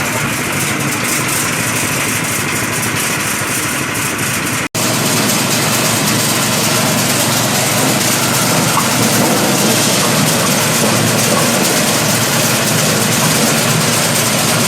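Kolang-kaling (sugar palm fruit) peeling machine running with a steady mechanical noise. A brief break about a third of the way in, after which it runs slightly louder.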